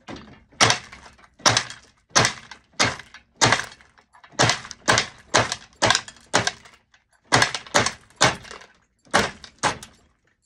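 Glass murrine cane being chopped into slices by a flywheel-driven cane-cutting machine: a rapid series of sharp glassy snaps, about two a second, with short pauses about four and nine seconds in.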